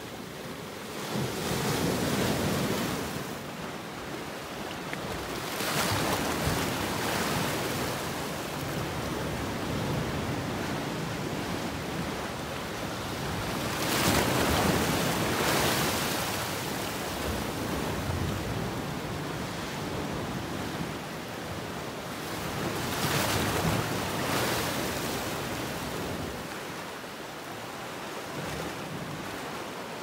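High Sea of Japan surf washing in over rocks and draining back, a steady wash that swells into four bigger surges, the loudest about halfway through.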